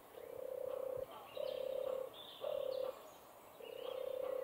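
Forest ambience: a low trilled animal call repeated about once a second, each note lasting about half a second to a second, with faint high bird chirps in between.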